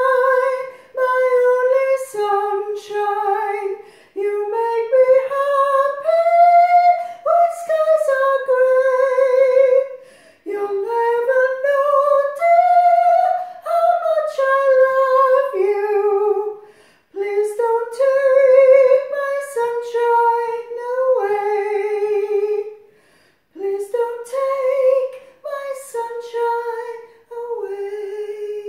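A woman's soprano voice singing alone, without accompaniment, in long held notes with vibrato. The melody comes in phrases separated by brief pauses for breath.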